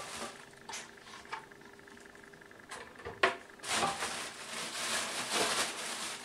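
Plastic packaging rustling and crinkling as parts are handled and pulled out of a box, with a few light knocks; the rustling sets in about halfway through, after a sharper knock.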